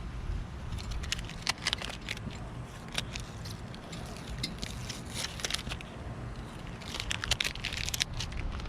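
Stickers being peeled and scraped off auto glass parts: scattered sharp clicks and crackling, thickest about halfway and again near the end, over a low rumble.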